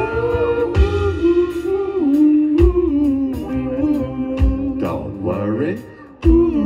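A live band playing with a singer holding long, sliding vocal notes, over a low drum thump about every two seconds and cymbal ticks. The band drops away briefly near the end, then comes back in on a strong hit.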